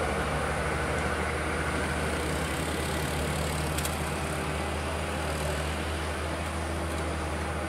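Diesel engine of a flatbed truck carrying a tractor, running with a steady low drone as the truck rounds a bend.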